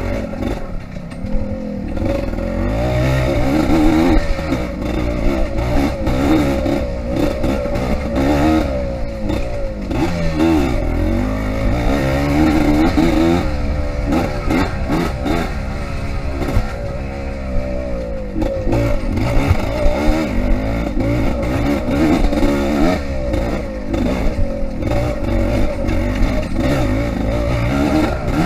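Yamaha IT200 two-stroke dirt bike engine being ridden hard off-road, its pitch rising and falling every second or two as the throttle opens and closes, with scattered knocks and clatter over the rough course.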